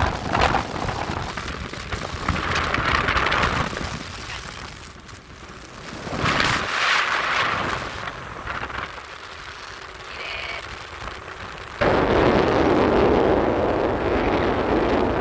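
Wind buffeting the phone's microphone on a moving motorboat, rumbling in uneven gusts, with the longest and loudest gust starting near the end.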